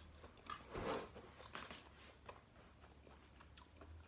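A person quietly chewing and biting food, with soft crunches and scattered mouth clicks, strongest about a second in.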